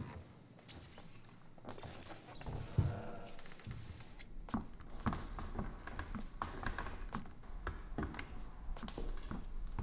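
A child's light footsteps and small taps and knocks from handling things, irregular and several a second from about four and a half seconds in, after a short rustle.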